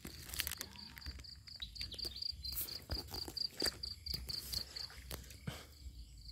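An insect chirping in a fast, even pulsed trill, about six chirps a second, high-pitched, with scattered rustles and steps through grass.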